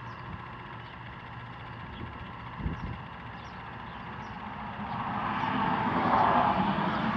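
Steady rumble of a vehicle's engine and road noise that grows louder over the last few seconds as it comes closer, with a couple of soft low knocks early on.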